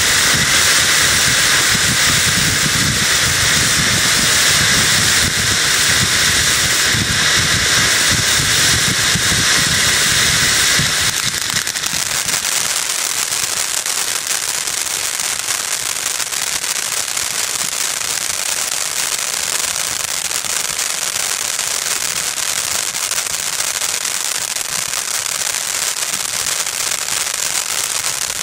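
Alamo Jumbo Shell Fountain, a 500 g ground fountain firework, spraying sparks with a steady rushing hiss and low rumble. About eleven seconds in, the rumble drops away and it goes over to dense crackling from its crackling stars.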